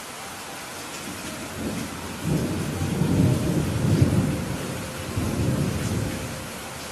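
Steady heavy rain with a rolling rumble of thunder that builds about a second and a half in, peaks in the middle and fades away near the end.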